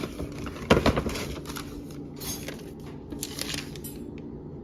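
Makeup products and packaging being handled out of a shopping bag: a sharp knock as an item is set down about a second in, then lighter clicks and rustling.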